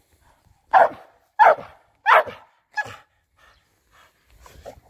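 A dog barking four times in quick succession, the barks about two-thirds of a second apart, then only fainter, shorter sounds near the end.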